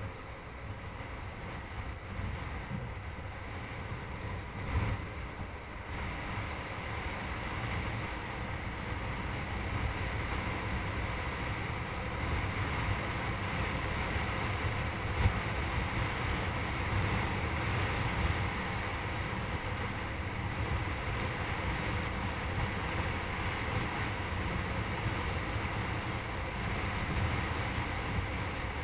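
Wind rushing over the camera microphone on a moving motorcycle, a steady low buffeting roar with the bike's engine and tyres running beneath it at cruising speed. It grows a little louder over the first several seconds.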